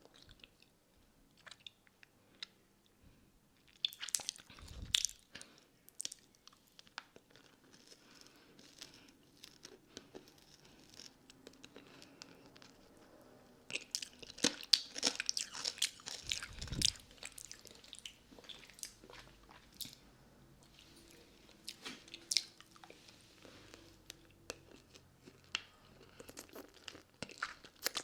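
Close-up mouth sounds of someone eating a hard lollipop: sharp, wet clicks and crunches in bursts, with quieter pauses between and the busiest stretch about halfway through.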